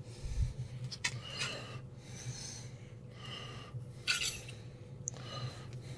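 A man breathing heavily, close to the microphone, in soft puffs about once a second, over a steady low hum. A brief low thump comes just after the start.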